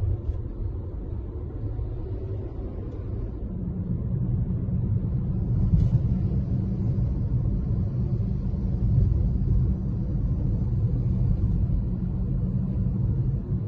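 Low rumble of a moving vehicle in city traffic, with engines and tyres of the cars and buses around it; it grows louder and fuller about three and a half seconds in.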